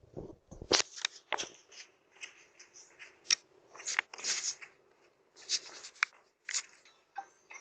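Irregular short rustles and sharp clicks, roughly two a second, over a faint steady background.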